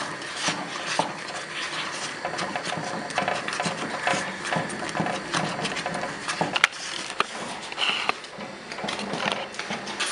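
Wooden spoon working thick sadza (stiff maize-meal porridge) in a metal pot: a rhythmic scraping and slapping as the thickening porridge is stirred hard, with one sharp knock about two-thirds of the way through.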